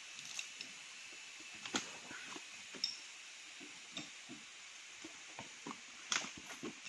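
Scattered sharp clicks and clinks of a metal chain being handled and fastened around a log, the loudest about two seconds in, just under three seconds in and near the end, over a steady faint high-pitched background hiss.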